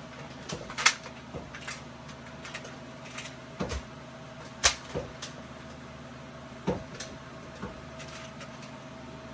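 A series of irregular sharp clicks and knocks, the loudest about a second in and near the middle, over a steady low hum.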